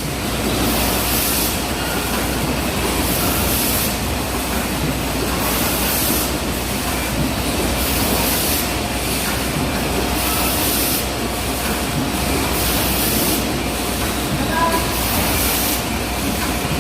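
Chicken bagging and clip-sealing machine running, a steady mechanical din with short bursts of high hiss repeating every one to two seconds.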